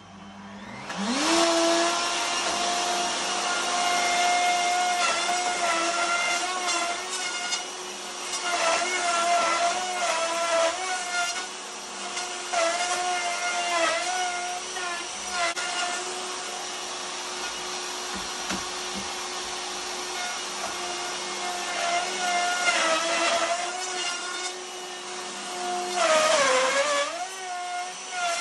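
A plunge router starts about a second in, its whine rising as it spins up, then runs steadily while it is pushed on a sliding jig across a wide timber tabletop to plane it flat. The pitch dips again and again as the bit bites into the wood, and sags deeply near the end under a heavier cut before recovering.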